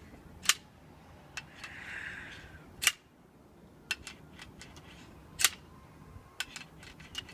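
A metal stapler striking the neck of a glass sparkling-wine bottle in repeated sabering attempts: three sharp clacks a couple of seconds apart, with lighter taps between them. The cork does not come off.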